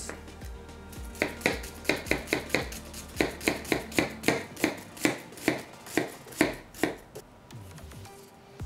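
Chef's knife chopping half an onion on a plastic cutting board: a steady run of sharp taps of the blade against the board, about three or four a second, stopping about seven seconds in.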